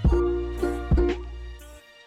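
Background music with a steady beat: a bass line with plucked or keyed notes over it.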